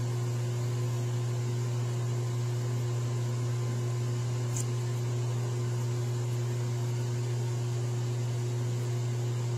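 Steady mechanical hum: a strong low drone with fainter higher tones and a hiss above it.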